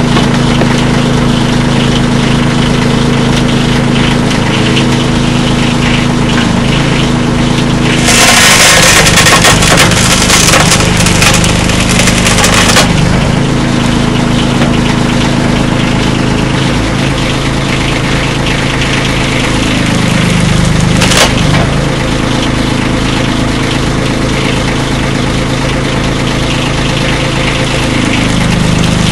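Engine running steadily to drive a hydraulic wood shearer, its pitch shifting several times as the ram works. About eight seconds in, the blade shears through a block of wood with a loud splintering crackle lasting about five seconds. A single sharp crack of wood comes later on.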